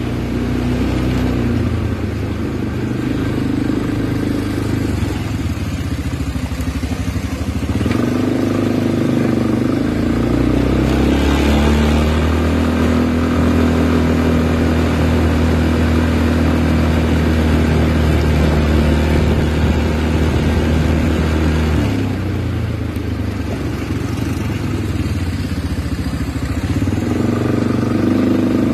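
Small motorbike engine running while riding, its pitch shifting several times as the speed changes, with a long, steady stretch in the middle.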